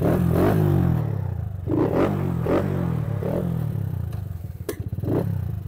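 Kawasaki Kaze R moped engine running, its pitch rising and falling with the throttle, which is working on a makeshift cable. Two sharp clicks come near the end.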